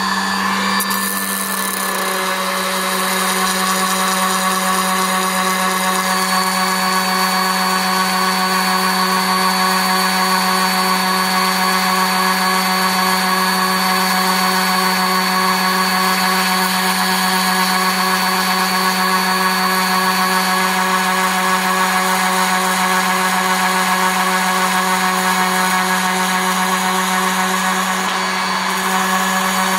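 Ridgid 18V cordless random orbital sander running steadily at its highest speed setting (6), with a steady motor hum. It stands on its battery with a block of wood held against the spinning pad, sanding the wood's end flat.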